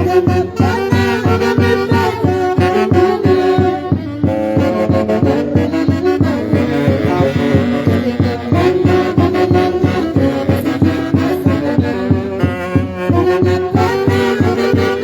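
Live Andean dance-band music from a Huancayo-style orquesta, with horns playing the melody over a steady, even beat.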